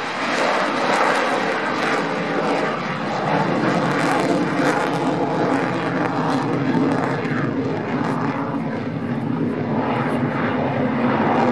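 Loud, steady jet engine noise from a twin-engined F/A-18 Hornet fighter climbing and turning overhead.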